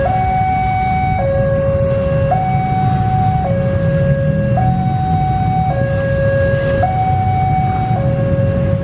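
Two-tone electronic warning alarm, most likely the level-crossing alarm, alternating steadily between a high and a low note held about a second each. Under it is the low rumble of a train pulling away.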